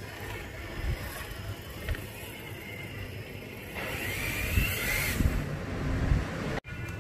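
Electric motor and gear drive of a Traxxas TRX-6 radio-controlled six-wheel rock crawler running, with a whine that rises about four seconds in over scattered low thumps. The sound cuts out for an instant near the end.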